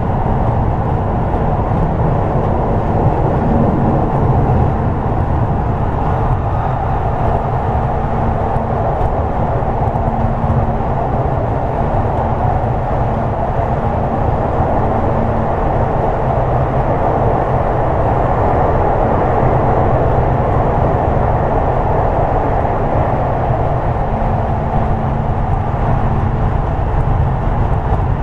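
Toei 10-300 series electric train running at speed, heard from inside the car: a steady rumble of wheels on rail. A faint low hum swells and fades twice.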